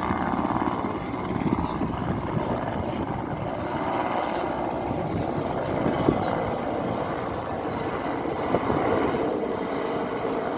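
Helicopter flying overhead, its rotor and engine sounding steadily throughout.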